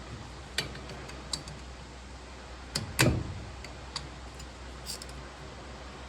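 A series of sharp metallic clicks and clinks from hand tools and small metal parts being handled, spaced irregularly, the loudest about three seconds in. They come from working at the split pin that joins the brake pedal to the booster pushrod.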